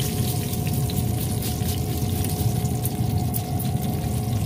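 Repeated short hisses of a finger-pump bottle of butter-flavoured spray misting the duck's skin, over the steady hum of the running pellet grill.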